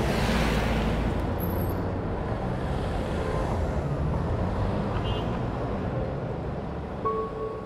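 A car passing close by with a rushing whoosh at the start, then a steady traffic rumble that slowly fades.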